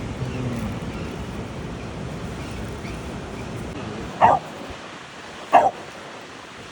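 A dog barks twice, about four and five and a half seconds in, over a steady rush of surf.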